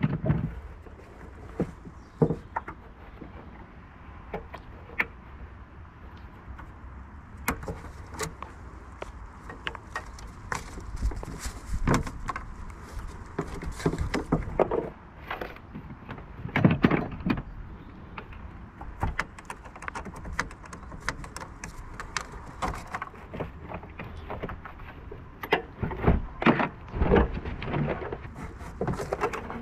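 Scattered clicks, knocks and rattles of hand work in a car's engine bay: the battery earth-strap clamp is released and the battery is lifted out. Heavier knocks come twice, about halfway through and again near the end.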